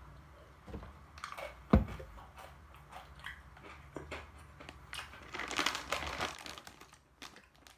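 A single sharp knock about two seconds in, then the plastic wrapper of almond Pepero sticks crinkling for about a second a little past the middle, among small handling clicks.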